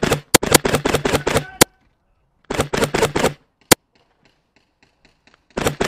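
Airsoft gun firing close by in quick strings of shots, about eight a second. A burst of about a second and a half comes first, then a shorter burst, a single shot and faint scattered shots further off, and another burst starts near the end.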